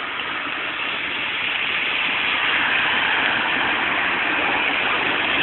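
A road vehicle approaching, its engine and tyre noise growing steadily louder.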